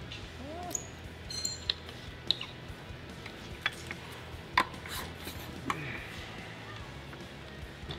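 Scattered sharp metallic clicks and clinks, a few with a brief high ring, as parts on a trolling motor's head and shaft are handled, over faint background music.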